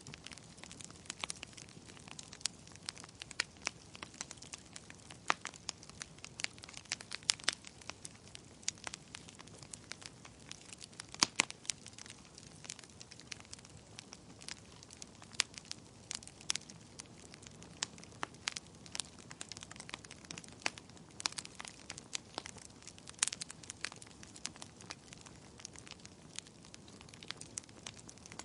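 Wood fire burning in a fireplace, crackling with frequent sharp irregular pops over a low steady hiss.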